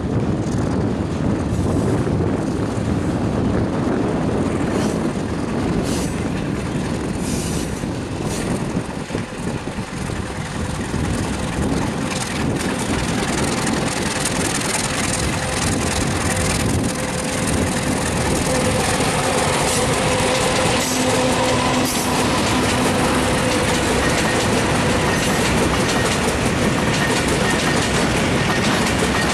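Bangladesh Railway freight train passing close by: a diesel locomotive followed by a long rake of bogie oil tank wagons, the wagon wheels clattering over the rail joints. About two-thirds of the way through a faint steady whine from the wheels joins the rumble.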